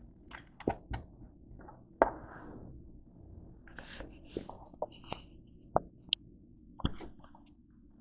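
A run of small knocks, clicks and rustles from things being handled on a wooden tabletop and the camera being moved, the sharpest knock about two seconds in.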